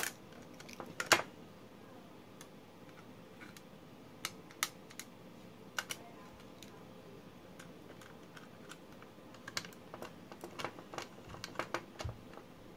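Scattered small clicks and taps of a precision screwdriver and tiny screws against a metal hard-drive bracket and a 2.5-inch SSD as the screws are driven in finger tight. The sharpest clicks come right at the start and about a second in, with a quicker run of them in the last few seconds.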